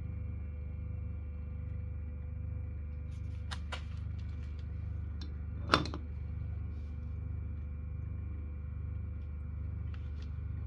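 Refrigerator compressor rigged as a vacuum pump, running with a steady low hum while it draws vacuum on a Büchner funnel filtration. A couple of light clicks come about three and a half seconds in, and one sharp click near the middle.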